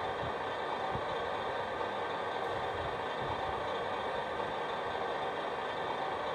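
Servonaut sound module in a 1/14-scale RC Volvo FH16 playing a simulated heavy truck diesel engine at a steady idle through the model's small speaker.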